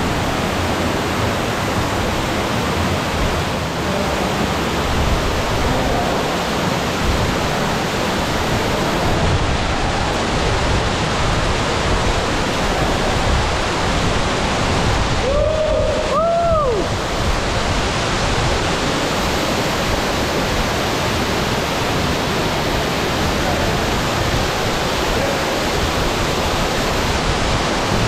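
Tukad Cepung waterfall pouring into its rock pool: a loud, steady rush of falling water and spray. About halfway through, a brief two-part rising-and-falling whoop rises over it.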